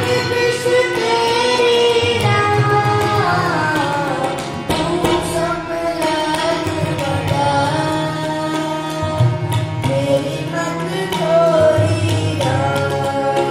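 Sikh devotional kirtan: a man singing a shabad over harmonium, with tabla keeping the rhythm. The sung line glides and falls in long melismatic phrases.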